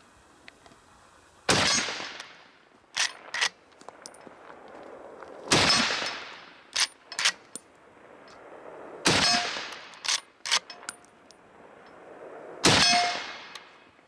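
Henry Long Ranger lever-action rifle in .308 Winchester fired four times, about three and a half seconds apart, each report trailing off over about a second. Between shots the lever is worked, heard as quick pairs of sharp clicks.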